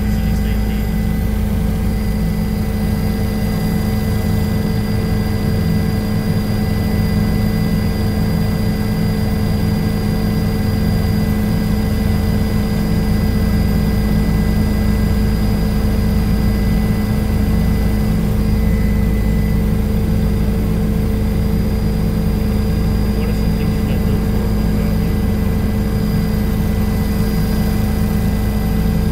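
Helicopter engine and rotor noise heard from inside the cabin in flight: a loud, steady drone with a thin high whine over it.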